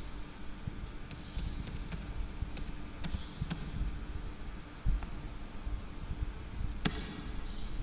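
Computer keyboard keys being pressed: a quick run of about seven taps, then a single louder click near the end. The taps come as a word is deleted from a text field.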